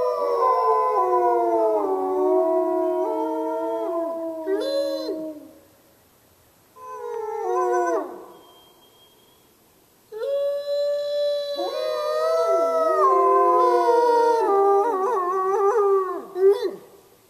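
Pack of wolves howling together, several voices overlapping and gliding down in pitch. The chorus breaks off about five seconds in, a single short howl follows, and the full chorus starts up again about ten seconds in, dying away near the end.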